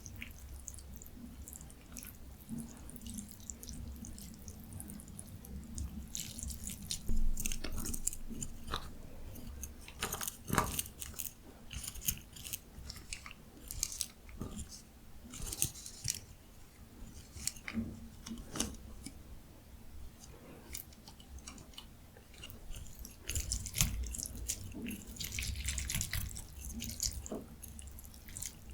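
Close-miked eating sounds: wet chewing and biting, with irregular crunchy, wet clicks and smacks, the food being ramyun noodles, kimchi and dumplings.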